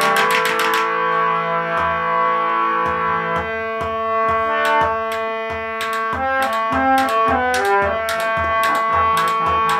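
Harmonium playing held chords and then a short melody. About three and a half seconds in, a steady rhythm of low thumps and slaps joins it: a clay water pot played by hand as a drum, in the manner of the Kashmiri nout.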